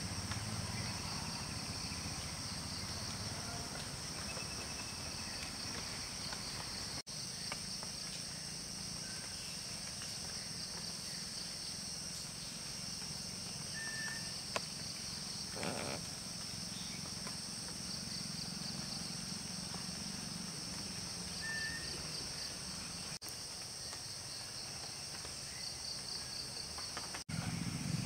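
Steady chorus of insects trilling in two high bands, with a low steady hum underneath. Two short bird chirps come about halfway and two-thirds of the way through, and the sound drops out for an instant three times.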